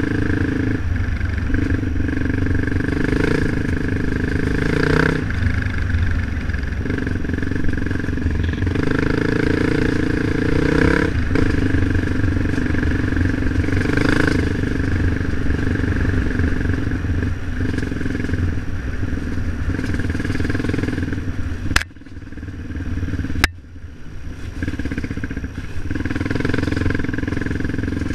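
Off-road motorcycle engine running steadily under way on a dirt trail. The sound drops away sharply twice, about three-quarters of the way through, before the engine comes back in.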